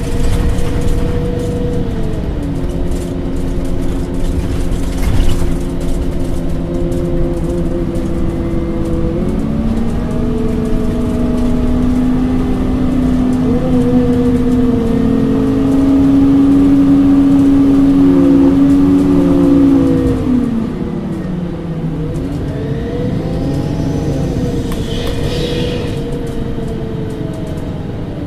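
MAN Lions City CNG city bus under way, its engine and drivetrain running with a whine that steps down in pitch about two seconds in. From about nine seconds the whine climbs steadily as the bus speeds up, then falls away sharply around twenty seconds and the engine runs lower and quieter.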